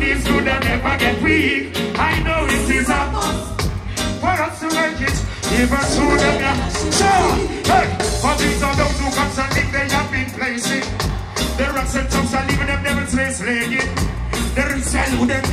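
Live reggae band playing with drum kit, bass and keyboards, with a steady beat and singing over it.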